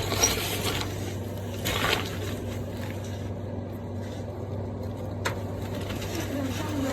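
A steady low hum, with a short rustling swell near the start and another around two seconds in, and a single sharp click about five seconds in.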